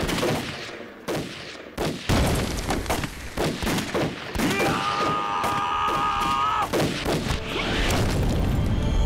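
Movie battle sound effects: scattered gunfire from rifles and pistols, with a held tone for about two seconds in the middle. An explosion with a low rumble comes near the end.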